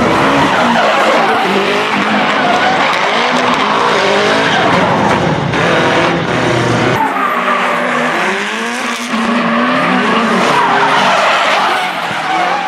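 Drift car's engine revving up and down hard while the rear tyres screech and skid through a sustained slide. The revving rises and falls repeatedly, and the sound changes abruptly about halfway through.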